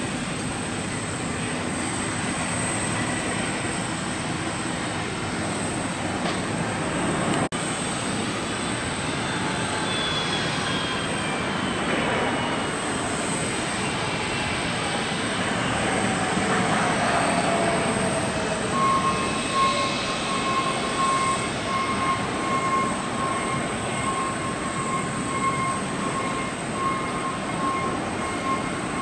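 Airliner jet engines on the airfield: a steady rushing noise with whines that fall in pitch as aircraft pass. A steady high engine whine joins about two-thirds of the way in.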